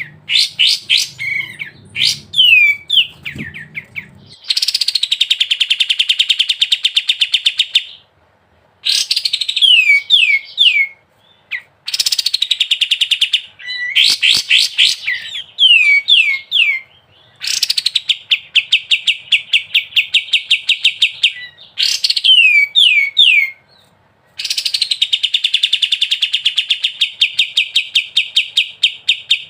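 Kapas tembak bulbul singing in the long rolling style bird keepers call 'ngebren': phrases of three or four quick downward-sliding whistles, each leading into a long, very fast trill lasting several seconds, repeated over and over with short pauses between.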